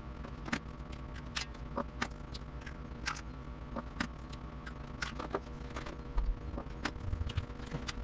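Eggs being cracked against a small bowl, with scattered light clicks and taps of eggshells and plastic freezer containers and lids being handled.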